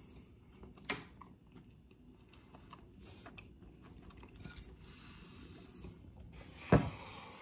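A person chewing a mouthful of steak sandwich, quietly, with small soft clicks and wet mouth noises. Near the end there is one brief louder sound.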